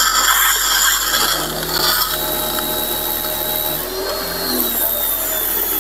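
Parkside PHD 135 E5 electric pressure washer running at its first start, with a steady motor-and-pump hum and the hiss of the water jet from the lance. The pump is still priming and pushing trapped air out of the system.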